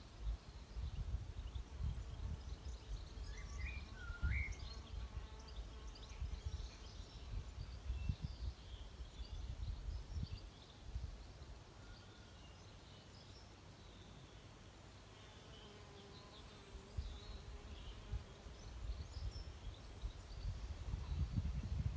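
Outdoor ambience: wind gusting on the microphone as a low, uneven rumble that eases for a few seconds midway, with small birds chirping now and then, one clear chirp about four seconds in.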